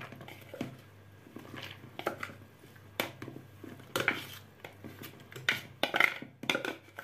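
Plastic food-processor bowl knocking and scraping against a plastic mixing bowl as grated vegetables are tipped and scraped out, giving irregular clacks and knocks, several of them close together a few seconds in.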